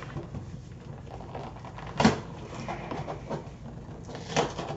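Cardboard LEGO set box being handled and pried open, with a sharp snap about two seconds in, a few light knocks, and another sharp sound near the end.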